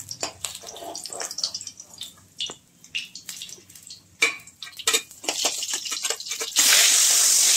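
Metal spatula scraping and clicking against a metal kadai and a steel plate as fried fish are lifted out of the oil, in a run of short, uneven knocks and scrapes. Near the end a loud steady hiss starts abruptly.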